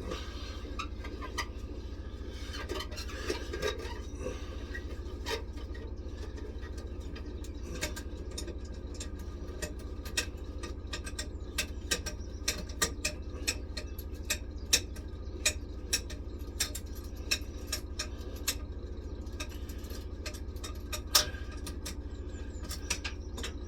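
Irregular light metallic clicks and clinks of hand tools and band fittings being worked and handled, coming thicker in the middle and later part. A steady low hum runs underneath.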